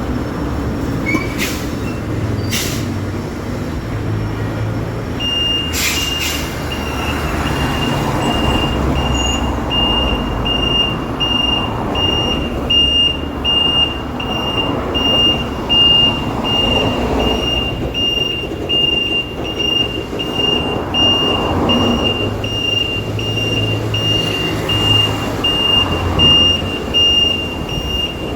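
Semi-trailer truck's reversing alarm sounding regular short high beeps, starting about five seconds in, over the steady low rumble of the truck's engine. A few sharp clicks come just before the beeping starts.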